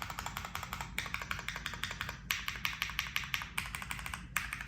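Monsgeek M1 mechanical keyboard with AKKO Jelly Black linear switches, PBT keycaps and an FR4 plate, with no foam, as its modifier keys are pressed over and over. The presses come as a quick run of clacks, broken by a few brief pauses.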